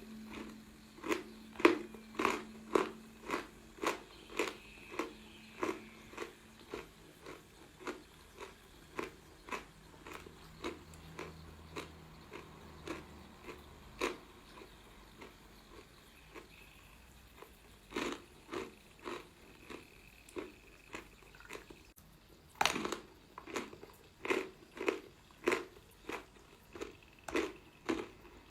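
Close-miked chewing of crunchy chalk, with sharp crunches about twice a second. The chewing weakens and pauses briefly in the middle, then resumes with louder bites.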